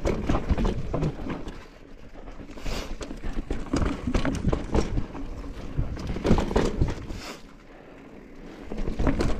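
Mountain bike rattling over rough trail ground: irregular knocks and clatter from the tyres, chain and frame, easing off briefly about two seconds in and again near the end.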